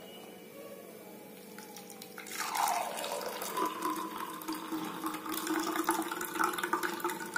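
Freshly ground amla and herb juice poured through a strainer into a vessel, starting about two seconds in: liquid splashing and trickling, its ringing pitch dropping at first and then holding steady.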